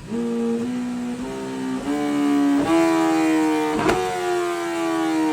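BMW S1000RR superbike's inline-four engine revving loudly through its exhaust. The pitch climbs in several held steps over the first three seconds, then slowly falls away, with a sharp crack about four seconds in.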